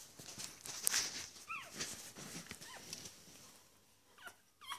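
Nine-day-old bichon frise puppies nursing, giving about five short, high squeaks and whimpers that drop in pitch, over rustling and knocks, the loudest about a second in.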